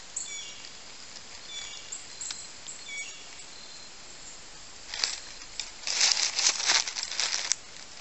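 Footsteps crunching through dry fallen leaves: one step about five seconds in, then a longer run of crunching steps for about a second and a half. Faint high chirps sound in the first few seconds.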